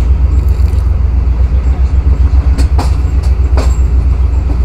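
Passenger train coaches rolling slowly out of a station, heard from an open coach window: a steady heavy low rumble, with a handful of sharp wheel clacks over rail joints and points in the second half.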